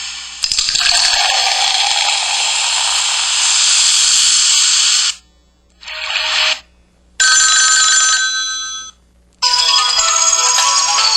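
KTF-X5200 mobile phone playing its built-in ringtones and sound effects one after another through its small speaker, each cut off after a few seconds. First comes a noisy hiss-like effect for about five seconds, then a brief sound, then a chime of steady held tones. A busy ringtone melody starts about nine seconds in.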